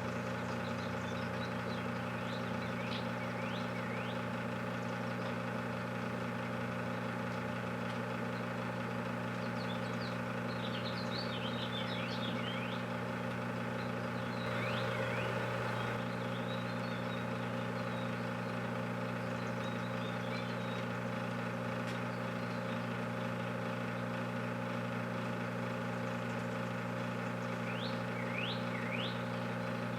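Microwave oven running with a steady electrical hum, while small birds chirp now and then.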